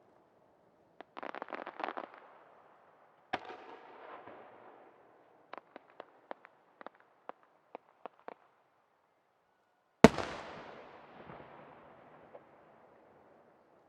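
Aerial firework shells bursting. A rapid crackle comes about a second in, then a sharp burst, then a string of about ten separate pops. The loudest report comes near the end and rings out in a long echoing tail.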